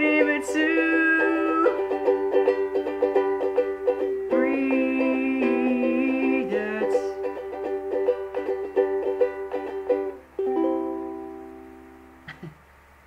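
Ukulele strummed in a steady rhythm under a sung voice holding a note at the start and again around four to six seconds in. The strumming stops about ten seconds in, and a final chord rings out and fades, followed by a small knock near the end.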